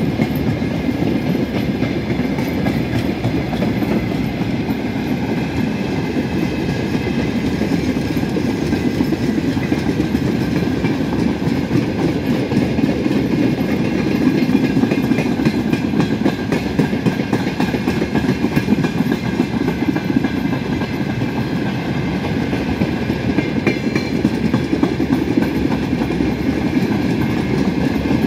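Freight train of open-top gondola wagons rolling past at speed: a steady rumble of wheels on rail with the clickety-clack of wheelsets passing over rail joints.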